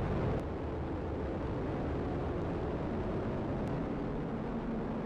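Atlas V rocket's RD-180 main engine and two solid rocket boosters during liftoff and ascent, a steady deep rumbling noise.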